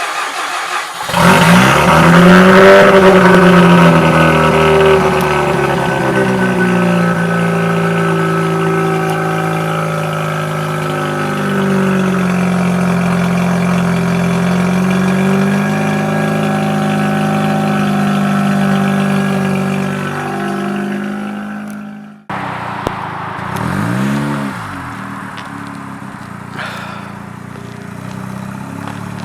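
Mazda RX-7 FC's naturally aspirated 13B two-rotor rotary engine cold-starting through a modified exhaust with a high-flow catalytic converter. It catches about a second in, flares up, then runs at a fast idle whose pitch wanders slowly up and down. After a brief cut near the end, one short rev rises and falls.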